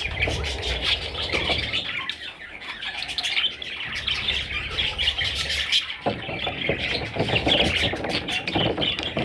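Pet budgerigars chattering, with many short overlapping chirps and squawks.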